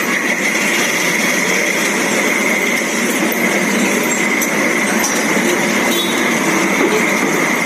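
Steady, loud street noise of running engines and traffic, with a constant high hum over it.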